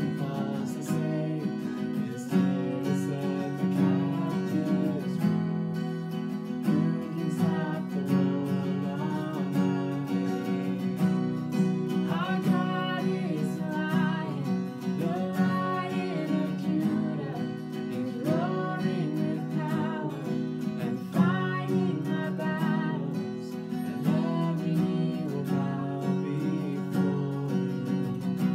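Two acoustic guitars strummed together, with voices singing a melody over them from about a third of the way in.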